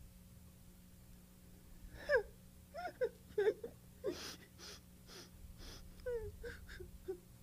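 A woman's voice giving a child puppet sad, wordless whimpers and moans: a string of short falling wails and sighs beginning about two seconds in, as the puppet acts out being upset.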